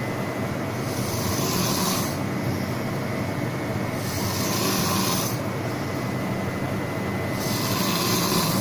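A person snoring in a regular rhythm, one breath about every three seconds, each with a hissy rush lasting a little over a second, over a steady hum.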